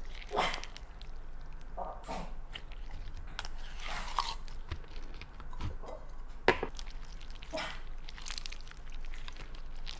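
Slime being squeezed and stretched by hand close to the microphone: irregular sticky crackles, squishes and small pops, with one sharp click about six and a half seconds in.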